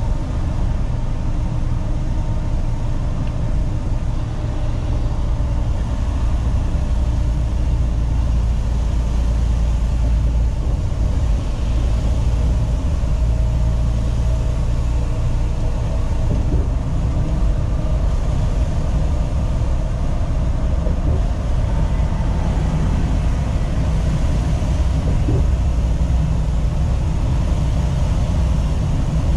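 Semi-truck's diesel engine and tyre noise heard from inside the cab while cruising at highway speed: a steady low rumble.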